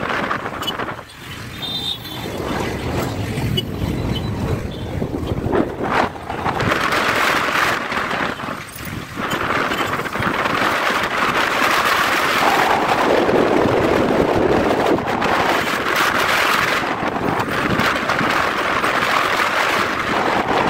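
Wind rushing over the microphone with road and engine noise from a Honda X-Blade motorcycle riding in traffic, the level dipping briefly about a second in and again near the middle.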